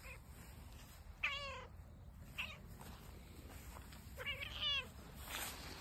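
Long-haired cat meowing twice, about a second in and again about four seconds in, each call wavering in pitch, with a couple of fainter short sounds between.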